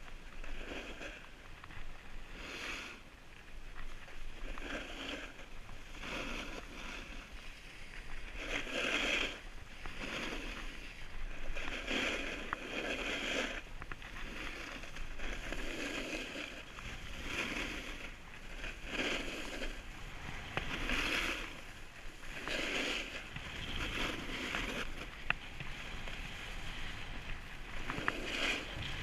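Edges carving through packed, groomed snow in linked turns: a scraping swish that swells about every one and a half seconds over a steady rush of sliding.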